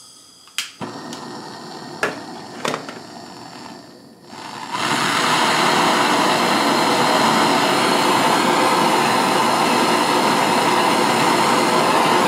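Hose-fed gas hand torch being lit: three clicks of a long-reach lighter over a soft hiss of gas, then about five seconds in the torch catches and burns with a loud, steady hiss.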